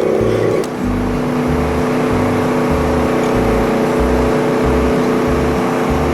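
Wood-Mizer LT15 band sawmill running steadily, its engine and band blade working at the log, with a slight shift in pitch under a second in.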